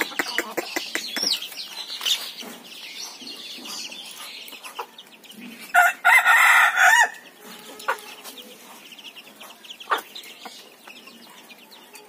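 Chickens clucking and chicks peeping, with sharp taps of beaks pecking at a clay feed bowl. A rooster crows once, loudly, about six seconds in, for about a second.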